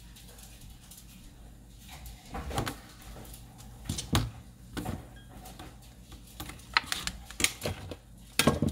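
A few separate knocks on a kitchen counter, then near the end a run of sharp clicks and crackles from a plastic clamshell container of grape tomatoes being handled.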